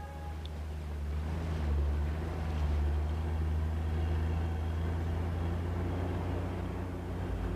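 A convoy of motor vehicles driving on a desert road, heard as a steady low engine and road rumble.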